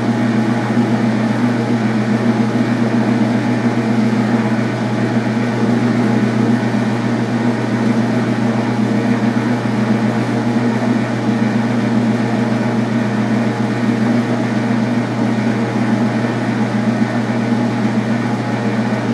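Metal lathe running at a steady speed with a constant machine hum as it turns a small steel rod.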